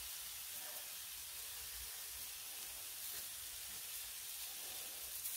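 Smashed ground tri-tip burger patties sizzling on the hot steel of a Blackstone flat-top griddle: a faint, steady hiss.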